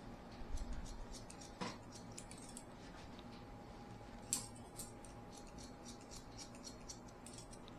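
Barber's scissors snipping hair in quick, irregular snips, with a couple of louder clicks among them.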